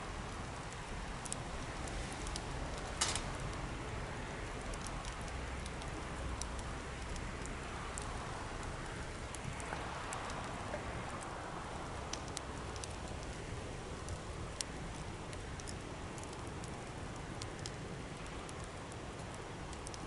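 Wood bonfire burning: a steady hiss of flames with frequent sharp crackles and pops from the burning wood, one louder pop about three seconds in.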